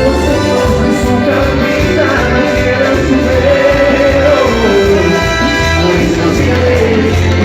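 Latin dance music in the cuarteto style, with a melody line gliding up and down over a full band.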